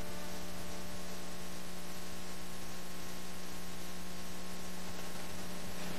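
Steady electrical mains hum over an even hiss, the background noise of an old analogue TV recording; the last of the music dies away in the first second.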